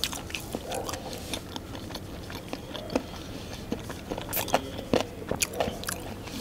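A man chewing a mouthful of fried chicken lollipop coated in garlic chutney, with irregular small clicks and smacks of the mouth.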